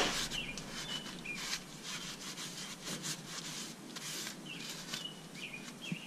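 Shop rag wiping and rubbing over a pickup's rear differential cover, a run of repeated rustling scrapes, the loudest right at the start. Short high chirps come and go among them.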